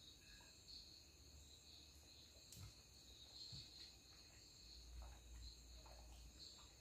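Near silence: room tone with a faint, steady high-pitched chirring and a single faint click about two and a half seconds in.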